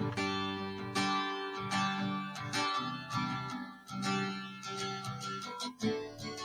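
Background music: a strummed guitar playing chords, one struck about every second.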